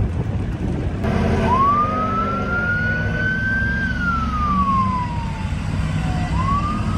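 A siren wailing: one tone rises slowly, falls, and begins rising again near the end, over a steady low rumble.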